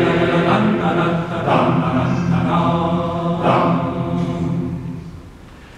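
Men's choir singing in harmony, drawing out the last word of a verse; the chord fades away about five seconds in, leaving a short pause.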